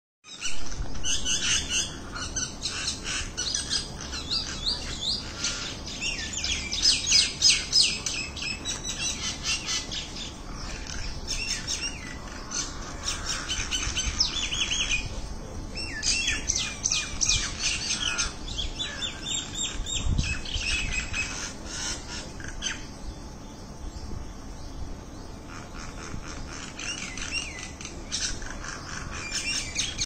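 A group of common mynas chattering: rapid runs of short sliding calls in overlapping bursts, with a quieter stretch about three-quarters through.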